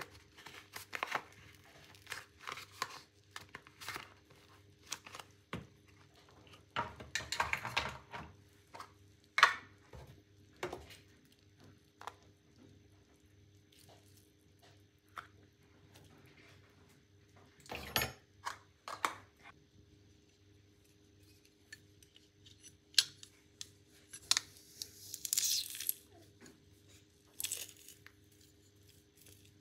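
Food-prep handling sounds: a paper sachet slit open with a knife, rustling and tearing, and powder and spices tipped and spooned into a plastic bowl. Scattered taps and clicks of utensils come throughout, the sharpest about a third of the way in.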